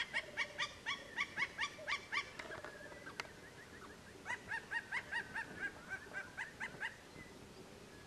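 Plains zebra barking: a rapid run of high, yelping calls, about four a second, for two seconds. A second run follows after a pause of about two seconds.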